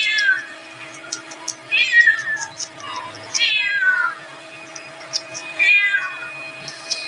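Domestic cat meowing four times, each meow falling in pitch, spaced about a second and a half to two seconds apart.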